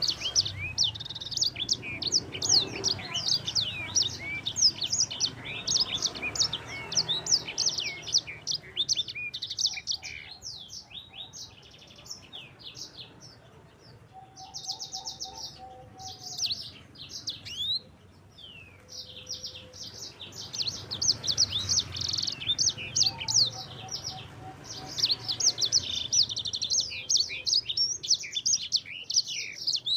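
Sanger songbird singing a fast, continuous rolling chatter of high chirps and trills. The song thins into a sparser, quieter stretch about a third of the way in, then returns in full for the last third.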